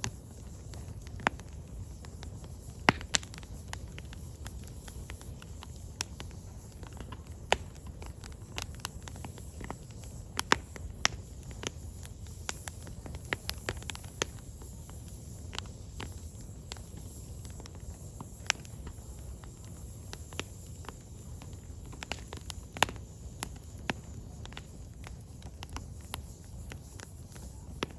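Firewood logs burning, crackling with irregular sharp pops, a few much louder than the rest, over a low steady rumble of the fire.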